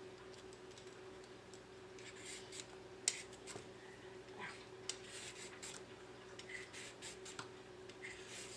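Vegetable peeler scraping the skin off a cucumber in short, irregular strokes, with one sharper click about three seconds in. A steady faint hum runs underneath.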